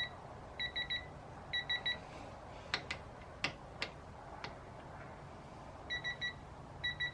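Digital torque wrench beeping in quick triplets of short, high electronic beeps, repeated several times, as it tightens a fork clamp bolt toward its 15 ft-lb setting. A few sharp clicks come in the pause mid-way.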